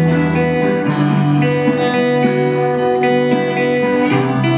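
Live band playing instrumental music led by electric guitar: sustained notes and chords that shift every second or so over a low bass line.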